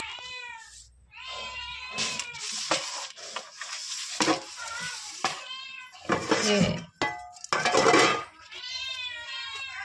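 Several cats meowing, their calls overlapping and bending up and down in pitch, with a few clinks of dishes among them.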